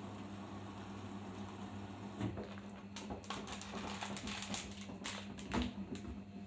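Arçelik 5083 front-loading washing machine taking in water near the end of its fill: a steady hum with a water hiss, joined from about two seconds in by irregular clicks and taps.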